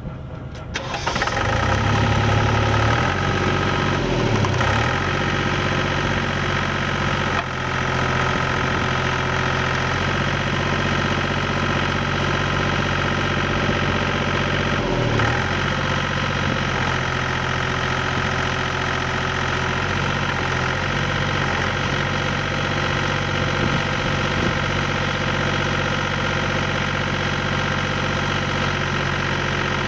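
Engine of a Vermeer LM42 trencher with backhoe starting up about a second in, then running steadily. Its pitch dips briefly and recovers twice, around five seconds in and again around fifteen.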